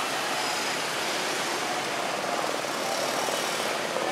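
Steady street traffic noise from motorcycles and cars, with a nearby engine's regular running sound coming up about two seconds in.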